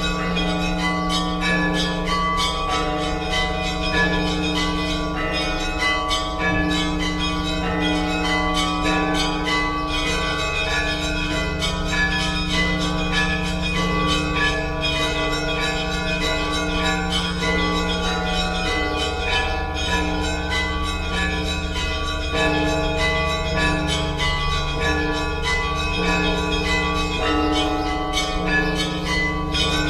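Orthodox church bells ringing a continuous peal: quick, dense strikes of the smaller bells over the sustained hum of deep bells.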